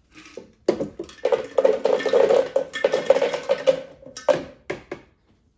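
Ice cubes poured from a glass pitcher into a blender jar of juice, clattering and clinking against the glass and the jar for about four seconds. A few last cubes knock in near the end.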